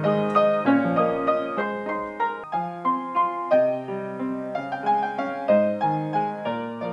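Background piano music: a melody of separate struck notes over lower bass notes.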